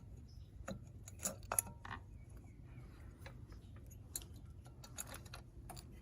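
Faint, scattered metal clicks and light knocks as the cylinder is worked up and off a Honda TRX400 engine, with the timing chain sliding through.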